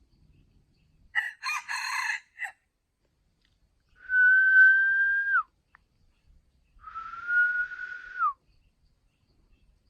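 Rooster crowing: a choppy crow in several short parts, followed by two long, steady, high-pitched calls that each drop in pitch at the end.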